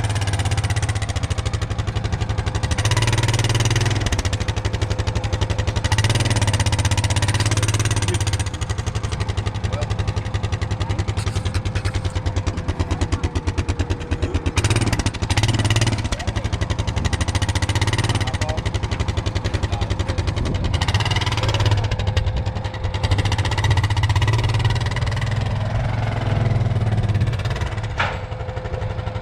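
A vehicle engine running up close, with a steady whine over it, its revs rising and falling several times.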